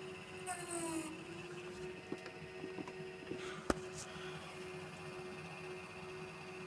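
Old desktop PC running after power-on, its fans giving a faint steady hum. A few small clicks, with one sharp click a little after the middle.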